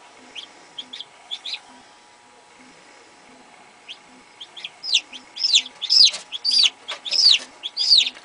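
A newly hatched chicken chick peeping: a few faint short peeps, then about halfway through a run of loud peeps, each sliding down in pitch, roughly two a second.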